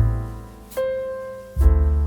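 Background piano music, a few sustained chords and notes struck one after another.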